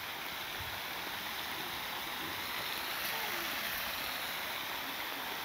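Steady splashing rush of a swimming pool's fountain jets.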